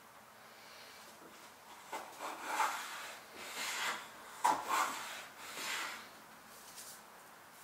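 Hand plane with a freshly sharpened blade pushed along a wooden board in about four short strokes, each a brief rasping swish of the iron cutting a fine shaving.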